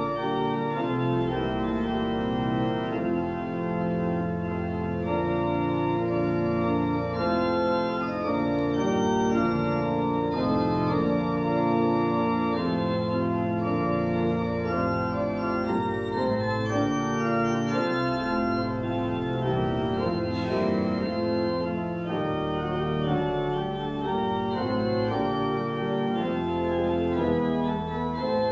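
Church organ playing the postlude: full sustained chords that change every second or so over low bass notes, at a steady loudness.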